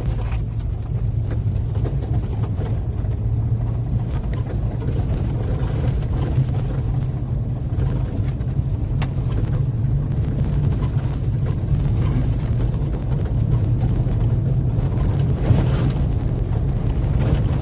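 Four-wheel-drive vehicle driving on a slick winter road: steady engine drone with road noise.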